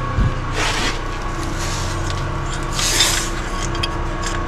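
Metal parts scraping and rubbing twice, in short rasping strokes, with a knock near the start and a steady hum underneath, during work on a Dana 44 rear axle.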